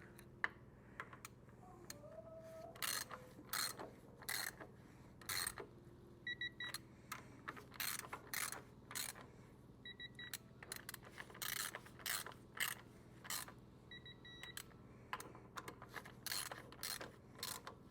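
Ratchet on a torque wrench clicking in short, uneven strokes as the pump manifold's bolts are tightened to a set torque of 8 pounds. A short electronic beep sounds four times, each time a bolt reaches the set torque.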